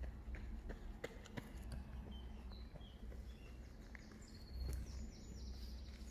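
Footsteps on a path, heard as scattered soft clicks, with a few short high bird chirps over a steady low rumble.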